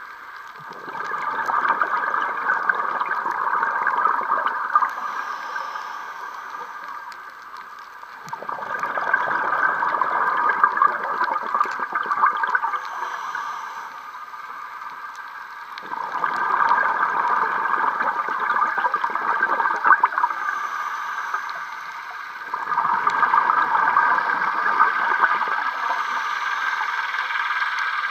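Scuba diver breathing underwater through a regulator: four long bubbling exhalations, one about every seven to eight seconds, with quieter stretches between.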